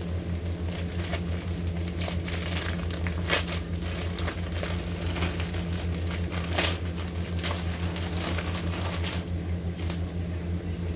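Package wrapping crinkling and rustling in irregular bursts as it is torn open and the contents are pulled out, over a steady low hum.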